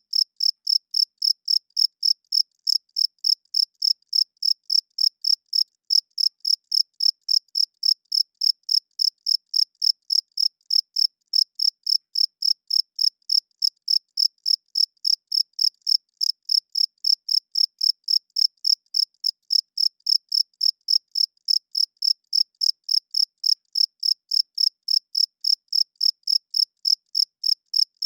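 Crickets chirping steadily: short, high-pitched chirps at an even rhythm of about three a second, the males rubbing their wings together.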